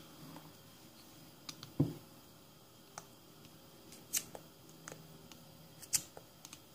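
Screwdriver tip clicking and scraping against the rubber vent caps and plastic lid of a sealed lead-acid battery as the caps are pried at. The clicks are irregular and separate, with the loudest about two, four and six seconds in.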